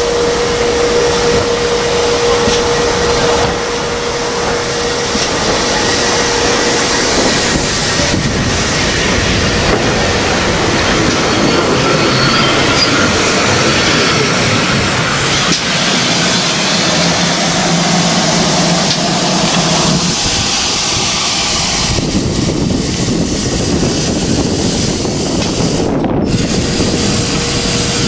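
GWR steam locomotives at the platform, hissing steam loudly and steadily. A steady tone sounds over the hiss for the first several seconds.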